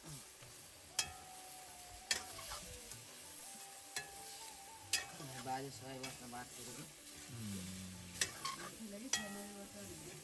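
Food sizzling as it is stirred in a pan, with the stirring utensil knocking sharply against the pan about six times.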